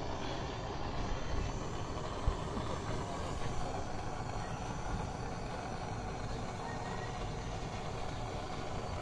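Canister gas torch flame hissing steadily as it heats a stainless motorcycle exhaust pipe to give it a blue-purple titanium-like heat tint, with a few light knocks.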